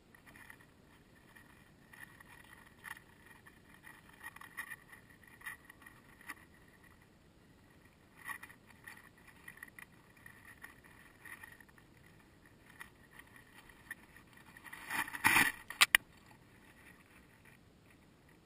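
Dry hay rustling and crackling in irregular bursts as a rabbit noses through it close to the microphone, with a louder stretch of rustling about fifteen seconds in ending in two sharp clicks.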